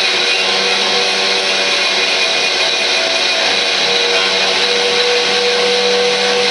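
Hand-held power tool driving a wire brush against a metal mower bracket, stripping off old paint: a steady motor whine over the continuous rasp of wire bristles on metal.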